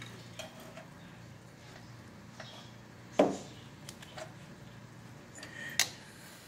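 Light metallic clicks and knocks of a vintage VW Bosch distributor being turned by its rotor and worked down into its crankcase port, with a louder knock about three seconds in and a sharp click near the end, over a low steady hum.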